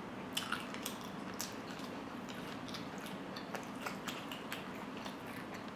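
Eating sounds: chewing and biting into grilled barbecue, with many small irregular clicks and crunches.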